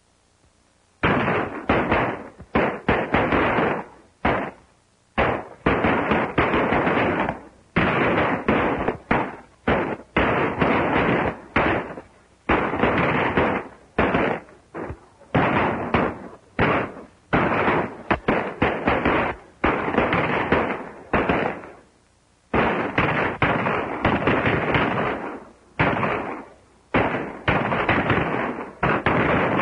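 Gunfight: many gunshots fired in quick, irregular succession, each sharp crack trailing off in an echo, starting about a second in.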